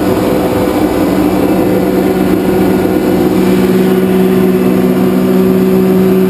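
Ingersoll-Rand SSR-EPE25U 25 hp electric rotary-screw air compressor running with a loud, steady hum.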